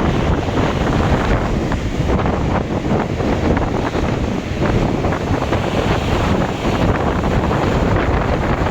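Storm wind buffeting the microphone over the continuous wash of heavy surf.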